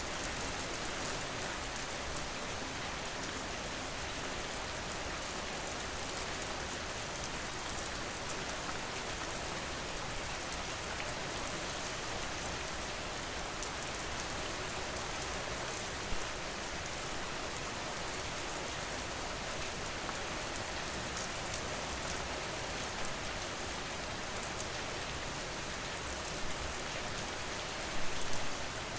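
Steady rain falling on a surface, an even, dense patter, with a few brief louder drops, the loudest near the end.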